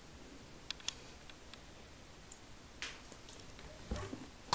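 A few faint, sharp taps and clicks at irregular intervals as a finger taps the touchscreen of a 7-inch Android tablet; the strongest come near the end.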